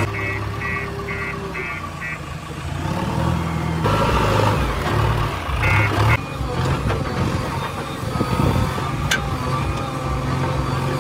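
JCB 3DX backhoe loader's diesel engine running under load while it digs, with its reversing alarm beeping steadily, about two beeps a second, for the first two seconds and briefly again about six seconds in.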